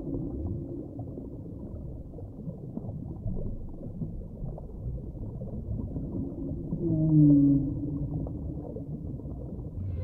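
Recorded whale song: a low underwater rumble, with one loud drawn-out moaning call falling slightly in pitch about seven seconds in.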